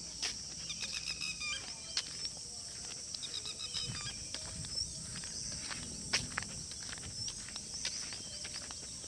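Footsteps of someone walking on dry sandy ground, over a steady high drone of insects, with a few short bird chirps.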